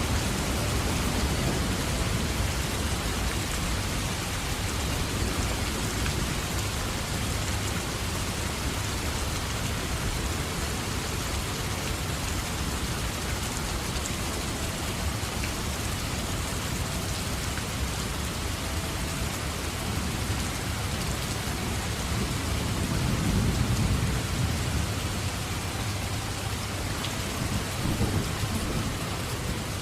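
Steady rain falling, with low thunder rumbling underneath. The rumble swells at the start, again about three-quarters of the way through, and briefly near the end.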